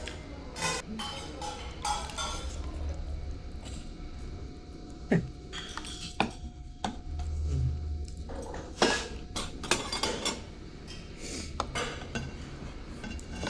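Dishes and cutlery clinking during a meal, in scattered sharp knocks.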